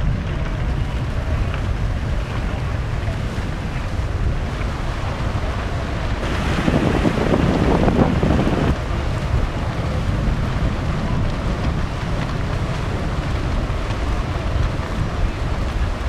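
Splashing and churning river water as a wildebeest herd swims across, with a steady wind rumble on the microphone. The splashing swells for a couple of seconds in the middle.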